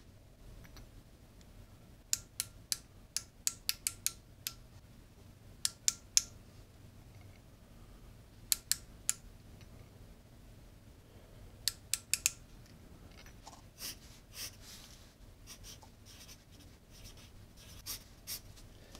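Several short runs of sharp clicks from a micrometer's ratchet thimble as it is closed on a piston to measure it. Near the end come softer scratching sounds of a pencil writing on paper on a clipboard.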